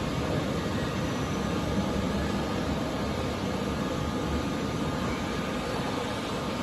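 Industrial welding robot cell running its program: a steady machinery hum and hiss with faint steady whining tones.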